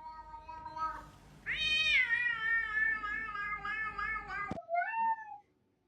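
A cat meowing: a long, drawn-out yowl lasting about three seconds that cuts off suddenly, followed by one short meow.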